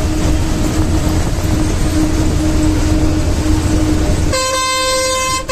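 Bus engine drone and road noise heard from inside the cab while driving on a highway, with a loud horn blast lasting about a second near the end.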